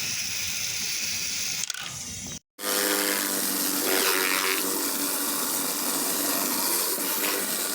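Pressure washer running: a steady machine hum under the hiss of water spray. The sound cuts out for a moment about two and a half seconds in, then resumes with the hum more prominent.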